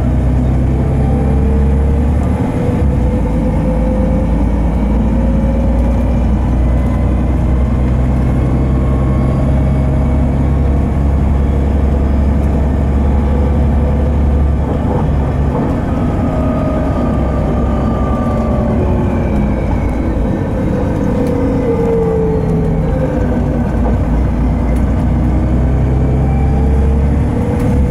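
Volvo B7TL bus's Volvo D7C diesel engine and Voith automatic gearbox under way, heard inside the bus: a steady low drone with whines that rise and fall in pitch several times as the bus speeds up and slows down.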